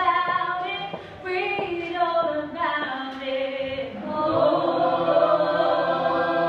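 Voices singing a melody. From about four seconds in, several voices hold long notes together and grow louder.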